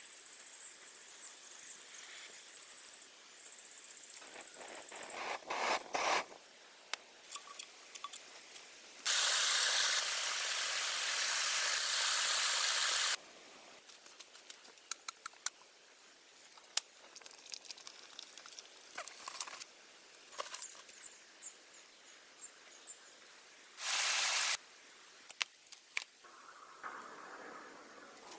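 Hand work with a knife and a machete on wood and bamboo: scattered cuts, taps and knocks, with a steady high whine over the first five seconds. A loud hissing rush runs for about four seconds from about ten seconds in, and a shorter one comes near the end.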